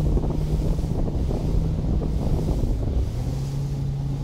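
Speedboat engine running at low speed, its hum stepping down in pitch about three seconds in, with wind on the microphone and water washing against the hull.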